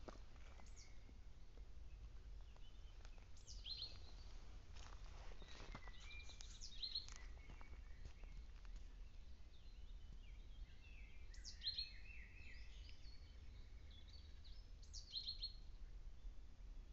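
Wild songbirds singing in woodland: short phrases of high, falling notes every few seconds, with one busier burst of song a little past the middle, over a faint low rumble. A couple of brief rustles about five seconds in.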